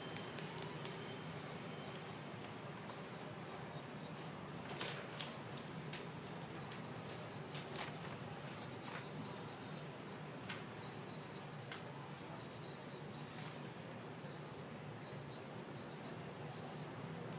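Drawing on paper: faint scratching of strokes across the sheet, with a few short, sharper strokes.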